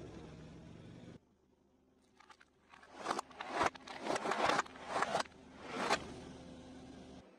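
Water balloons bursting under a rolling car tyre: a run of sharp bursts and crackling splashes between about three and six seconds in. Before that, a low steady hum cuts off suddenly about a second in.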